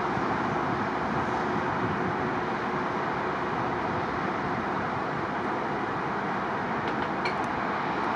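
Airbus A319 jet engines heard from a distance as the airliner lands: a steady, even rush of engine noise that holds at one level throughout.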